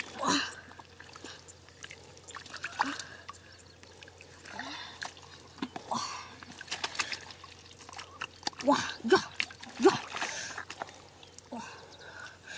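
Hands splashing and sloshing through a shallow pool of muddy water while groping for fish, with scattered wet slaps and squelches.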